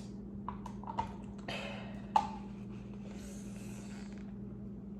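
Close-up mouth sounds while eating crab legs: a few sharp clicks and smacks and short breathy hisses, with a longer exhale in the middle, over a steady low hum.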